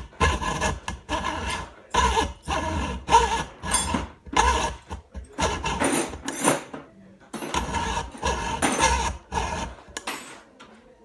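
Hacksaw cutting a carbon-fibre fork steerer tube with steady back-and-forth strokes, about two a second, with a brief pause about seven seconds in before the sawing resumes.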